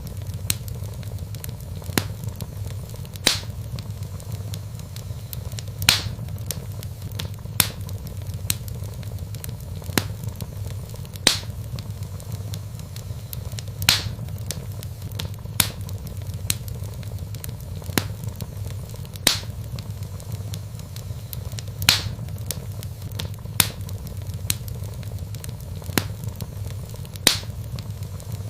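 Wood fire of burning logs crackling, with sharp pops every second or two over a steady low rumble.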